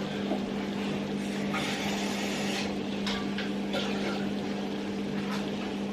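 A steady, low mechanical hum at one unchanging pitch, with a few brief, faint rustling or hissing noises over it.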